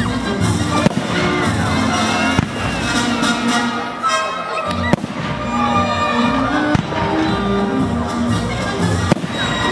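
Fireworks going off over music: sharp bangs every second or two, whistling rockets gliding in pitch, and a crackling burst about four seconds in.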